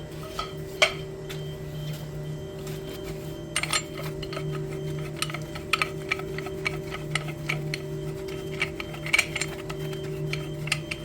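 Irregular metallic clicks and taps of tools working a gas pipe fitting open to drain water from the line, over a steady low mechanical hum. A louder click comes about a second in, and the clicks come thick and fast in the second half.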